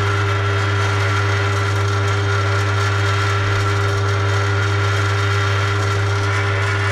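Bench drill press running free with no load: a steady motor hum with the spindle and belt drive turning. The spindle still has a lot of runout, which the owner puts down to worn spindle bearings or the chuck.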